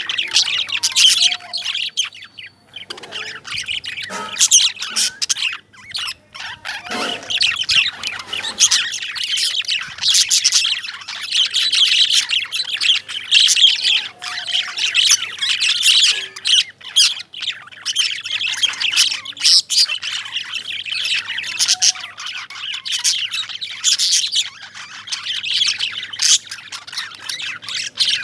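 A group of caged lovebirds chirping and squawking without pause, a dense chatter of overlapping high-pitched calls.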